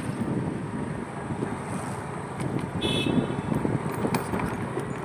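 Street traffic noise with a vehicle horn tooting briefly about three seconds in.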